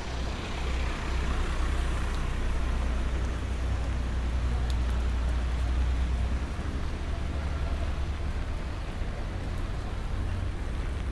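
Slow city traffic on a rain-wet street: a deep engine rumble from passing cars and taxis over a steady hiss of rain and wet road. The rumble eases a little about two-thirds of the way through.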